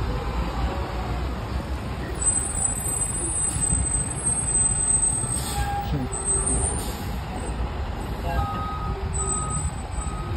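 Fire engine's diesel engine running with a steady low rumble, with two short air hisses around the middle. Near the end its reversing alarm starts beeping, about one and a half beeps a second, as the truck begins to back up.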